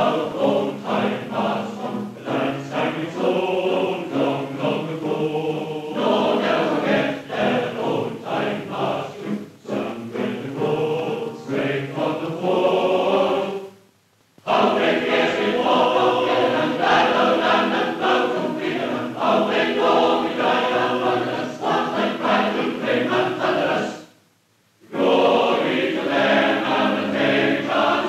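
A choir singing, heard as music with no narration. It breaks off briefly twice, about halfway through and near the end.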